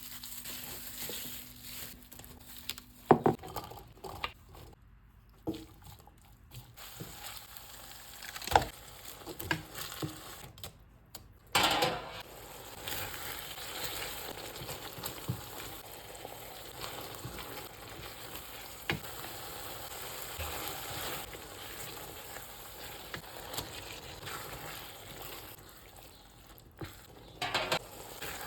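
Food frying in a pan, with a steady sizzle that starts about twelve seconds in. Several sharp knocks and clatters are heard earlier and again near the end.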